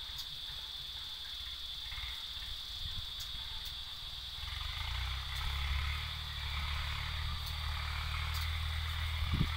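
Tractor engine running at a steady pitch while ploughing, its low hum growing louder about halfway through as it comes closer, under a steady high-pitched whine.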